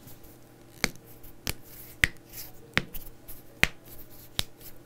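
About six sharp, dry clicks, spaced irregularly a little under a second apart, over a faint steady hum.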